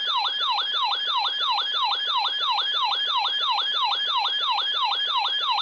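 Electronic yelp-style siren alert tone, a fast repeating sweep that falls in pitch about four times a second, leading into an emergency weather alert broadcast.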